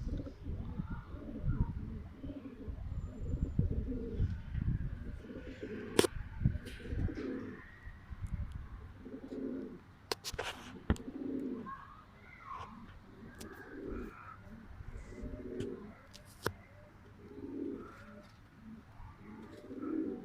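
Domestic pigeons cooing, with a low coo repeating every second or two. There is low rumbling in the first few seconds and a few sharp clicks.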